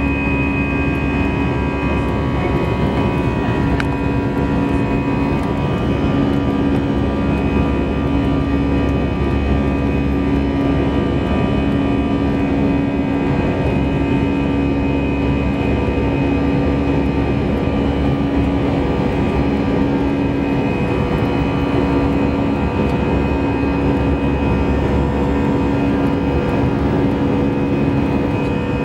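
Cabin noise of an Airbus A320 in its climb after takeoff, heard beside the wing-mounted jet engine: a steady engine drone with several held tones over a rush of air.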